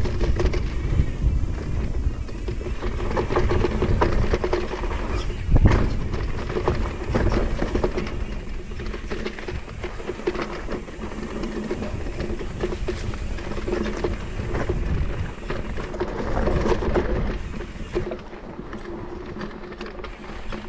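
Mountain bike rolling down a rough dirt trail: tyres rumbling over the ground, the bike rattling and knocking over bumps, with one hard knock about six seconds in, and wind buffeting the microphone.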